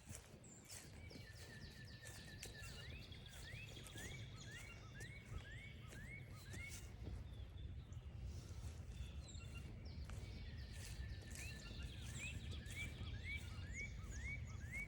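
A songbird singing a series of short rising notes, about two a second, in two bouts with a pause between them, over a faint steady low rumble.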